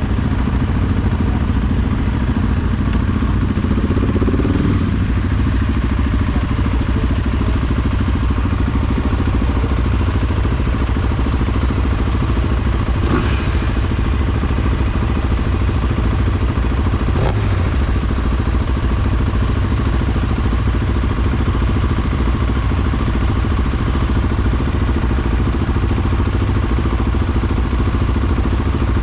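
Vehicle engine running steadily while driving off road, with rattling from the vehicle; the engine pitch rises briefly about four seconds in.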